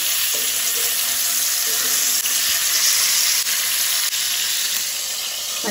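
Mackerel frying in hot coconut oil in a nonstick pan, a steady sizzling hiss with a few faint ticks as the fish are turned over with metal tongs.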